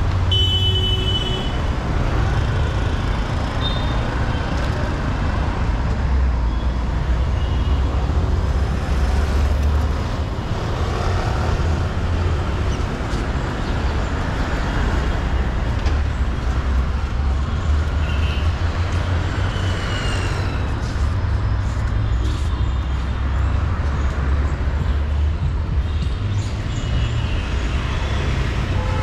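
Steady road traffic noise from passing cars and engines, a continuous low rumble, with a few brief high-pitched squeals or tones near the start and again about two-thirds of the way through.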